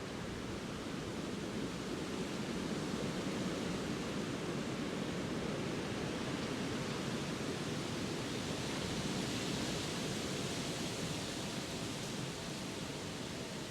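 Winter wind rushing through bare trees in gusts, a steady noisy rush that swells a little after a couple of seconds and eases near the end, with distant city traffic underneath.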